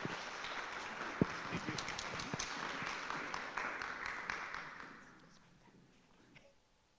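Audience applauding, dying away about five seconds in, with one sharp knock about a second in.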